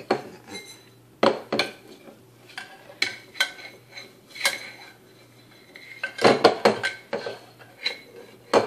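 A metal spoon clinking and scraping in a small saucepan of rice, in irregular knocks, with a quick flurry of them about six to seven seconds in.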